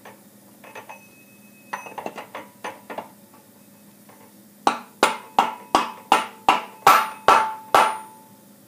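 A few light metal clinks as the gear-reduction housing is worked onto the engine, then a mallet tapping it home nine times in a steady run, about three taps a second. The housing is being seated dry over the splined crankshaft of a Honda GX-series engine.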